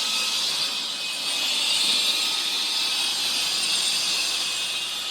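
Cordless stick vacuum running steadily with an even, high-pitched whooshing hiss.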